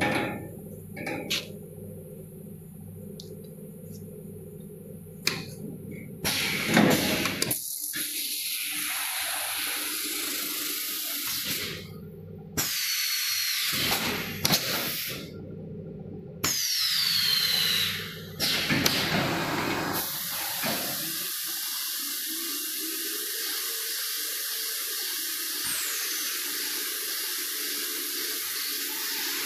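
Automatic BOPP tape slitting machine at work: a low hum with a few clicks, then loud steady hissing that cuts out and starts again several times. A falling whine sounds twice in the middle.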